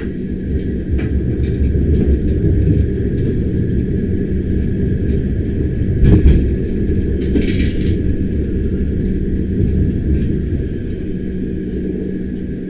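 Bernina Express train running on the line: a steady low rumble with scattered small clicks, and one louder knock about six seconds in followed by a short hiss.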